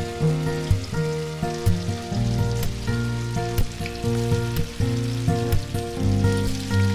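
Tofu slices sizzling and crackling in hot oil in a frying pan as they are laid in, under instrumental background music that is louder than the frying.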